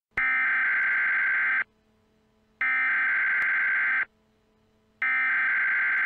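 Emergency Alert System SAME header: three bursts of digital data tones, each about a second and a half long with about a second of silence between them. These are the coded header that opens an EAS alert.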